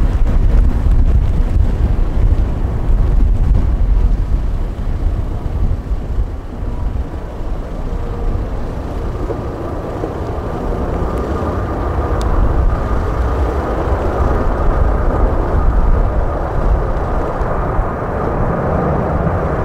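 Jet airliner engines running, with a steady whine coming in and growing louder through the second half, over a gusty low rumble of wind on the microphone.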